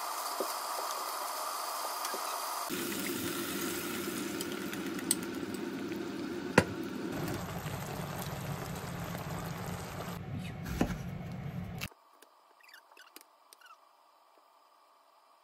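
Meat slices sizzling in a frying pan, then simmering in a sauce, with a few sharp clicks of chopsticks against the pan. About twelve seconds in the sound cuts to near silence with faint scrapes of a knife peeling a persimmon.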